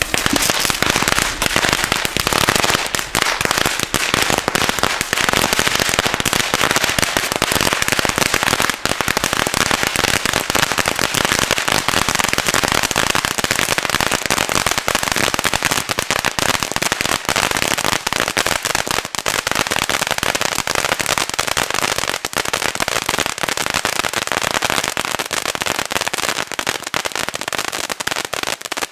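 Crackling ground fountain (a 'Crackling Vulkan' firework) burning: a loud, dense, unbroken crackle of countless tiny pops as it sprays crackling sparks a few metres high.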